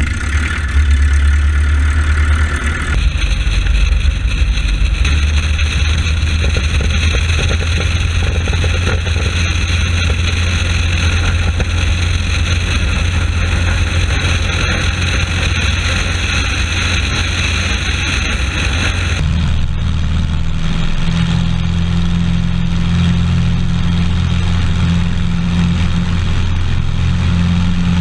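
Rotec radial engine of a Nieuport 28 replica running with its propeller turning: a loud, steady low drone. Its tone shifts abruptly about three seconds in and again about two-thirds of the way through.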